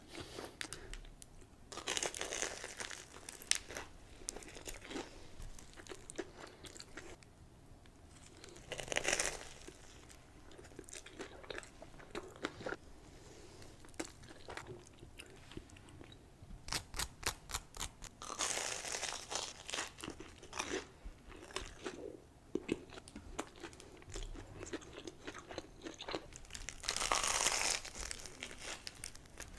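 Close-miked eating of a crispy-coated Korean corn dog: loud crunchy bites and chewing, coming in separate bursts several times with quieter chewing between.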